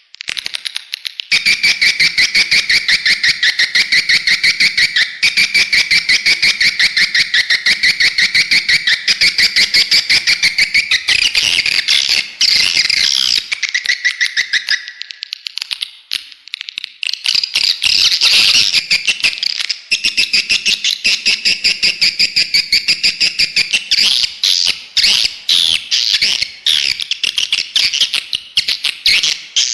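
Swiftlets chirping in a dense, rapid twitter of calls, easing off briefly about halfway through before picking up again.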